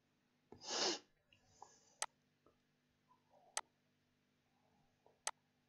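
Three sharp computer mouse clicks, about a second and a half apart, preceded by a short breath-like rush of noise about a second in.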